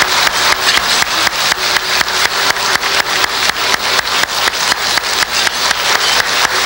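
A banquet crowd clapping in unison, a steady fast rhythm of about five claps a second.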